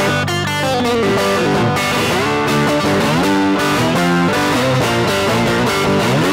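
Blues played on guitar and harmonica, with notes sliding down in pitch about half a second in and sliding up near the end.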